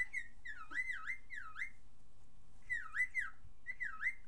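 Cockatiel whistling a run of quick notes that each dip and rise in pitch, in two bursts with a short pause between.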